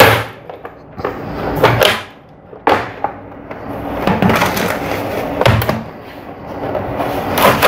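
Plastic casing of a 17-inch LCD monitor being opened and turned over on a wooden desk: about half a dozen sharp knocks and clicks of plastic, with scraping and rubbing between them.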